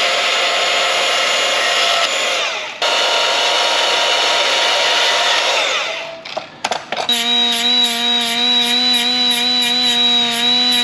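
Milwaukee FUEL brushless cordless band saw running as it cuts self-tapping screws shorter. It runs in two stretches with a short break about three seconds in, then winds down about six seconds in. About seven seconds in, a compact Milwaukee cordless cut-off tool with a small abrasive wheel spins up with a steady high whine, pulsing a few times a second as the cut screw end is dressed against it.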